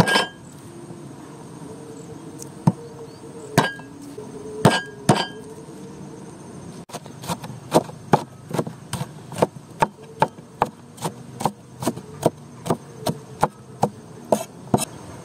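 Cleaver striking a wooden cutting board: a few separate knocks, then from about seven seconds in a steady run of chopping through spring onions at roughly three strokes a second.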